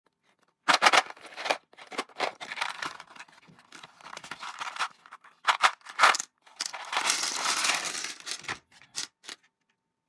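A small cardboard box of clear plastic WAGO 2773-2401 inline connectors being opened and handled: irregular scraping, rustling and crinkling of the card and its contents, with sharp bursts about a second in and around six seconds, and a longer stretch of rummaging near the end.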